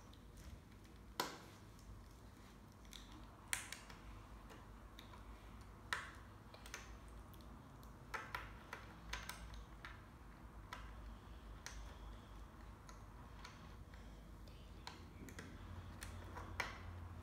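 Faint, irregular clicks and taps of small plastic Lego bricks being handled and pressed together, with a few sharper clicks.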